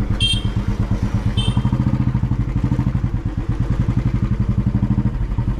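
Motorcycle engine running at a steady pace, with a quick, even low pulse. Two short high chirps come in the first second and a half.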